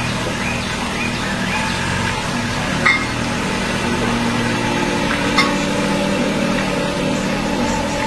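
A steady mechanical hum, with two short sharp sounds about three and five and a half seconds in and a few faint short chirps.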